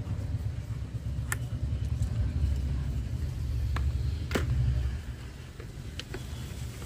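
A few sharp plastic clicks and knocks as the helmet visor is pushed free of its side pivot holder, over a steady low rumble.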